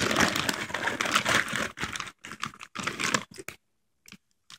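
Crinkly chip bag rustling and crackling as a toddler digs into it for chips; the dense crackling thins out about three and a half seconds in to a few scattered crackles.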